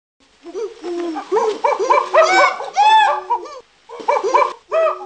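Dog-like yelps and barks in quick succession, several pitches overlapping, pausing briefly a little before four seconds in and then starting again.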